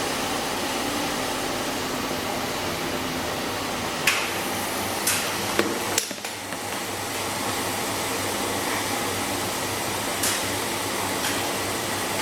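Bosch MAXX 6 front-loading washing machine running a boil-wash programme: a steady mechanical noise with several sharp knocks scattered through, the first about four seconds in.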